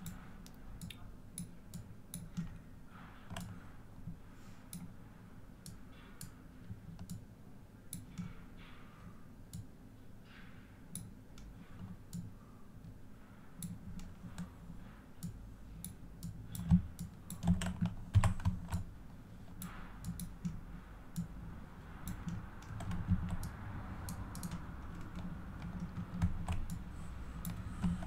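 Irregular clicking of a computer mouse and keyboard during hands-on editing at a desk, coming in quicker runs about two thirds of the way through.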